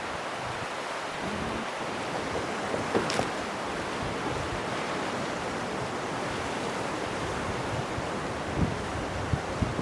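Mountain river rushing, a steady even wash of water noise, with wind buffeting the microphone in a few low thumps near the end and a brief click about three seconds in.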